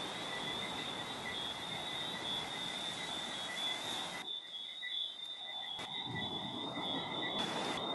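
A steady, high-pitched chorus of calling animals, holding two shrill bands throughout. For the first four seconds a rushing noise lies under it, then cuts off suddenly.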